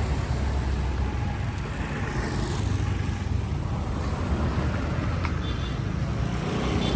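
Steady rumble of road vehicles, engine and traffic noise, with a brief click about five seconds in.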